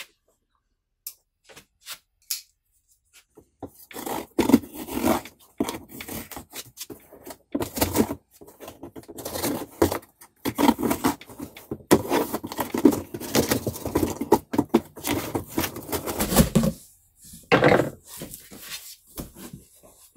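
A knife slitting the packing tape and cardboard along the top of a box, in irregular scraping and tearing strokes, then the cardboard flaps being pulled open near the end.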